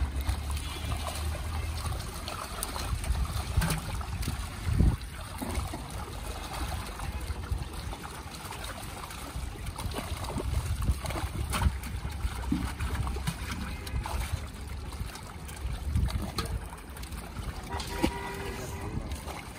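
Live fish thrashing in a seine net held in shallow pond water, with irregular water sloshing and sharp splashes and slaps as fish are handled and tossed into pots and back into the water.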